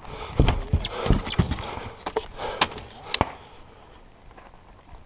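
Footsteps on dry gravelly ground and the knocks and clatter of a rifle and gear being handled, a string of sharp clicks and thumps that dies away after about three seconds. No rifle shot is heard.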